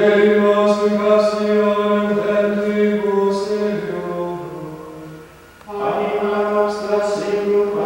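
Men's voices chanting plainchant in unison, a psalm-like line held on one reciting note. About two-thirds of the way through, the phrase drops in pitch and fades, and after a short breath a new phrase begins.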